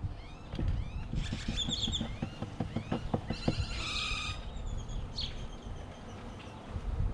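Birds chirping and calling, with a loud call about halfway through. Under them comes a run of soft knocks and rattles as wooden hive frames are handled.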